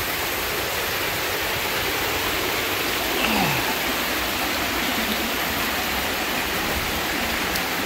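Snowmelt stream running over rocks inside a snow cave, a steady rush of water.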